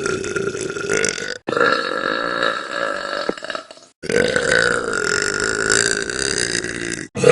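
Women belching on purpose: a run of long, drawn-out burps of two to three seconds each, cut one straight after another. One ends about a second and a half in, a second runs until about four seconds, a third follows, and a fourth begins near the end.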